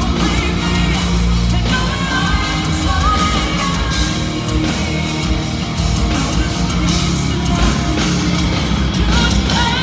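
Live heavy rock band at full volume: a woman singing into a microphone over electric guitars and a full drum kit.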